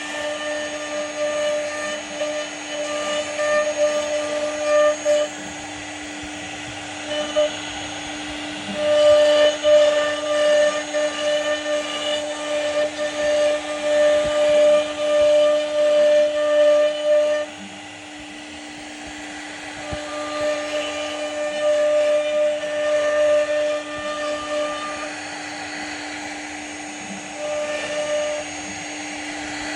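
CNC router spindle running with a steady whine while its bit carves wood, the cutting sound coming and going in stretches and dropping quieter for a spell a little past halfway.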